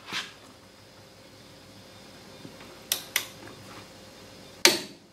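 MAC click-type torque wrench set to 100 ft-lb, pulled on leaf-spring U-bolt nuts. Sharp clicks come once near the start, twice close together about three seconds in, and once more loudly near the end: the wrench breaking over at its set torque.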